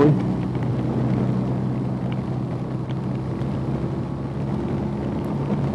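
BMW R nineT's air/oil-cooled boxer-twin engine running at a steady cruise, under a continuous hiss of wind and wet road.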